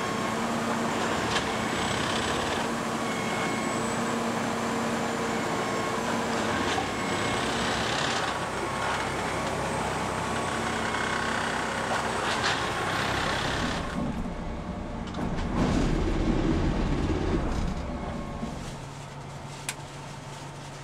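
Plasser & Theurer ballast regulator's engine and hydraulics running steadily with a constant whine as the machine works the ballast bed. About 14 s in the sound changes to a louder low rumble, then drops to a quieter steady hum, with one sharp click near the end.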